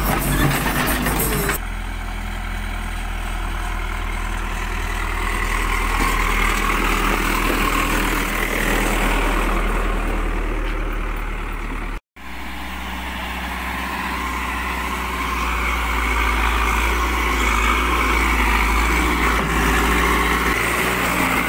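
Diesel engine of a backhoe loader running steadily, a deep even drone. It cuts out for an instant about halfway, then carries on as before.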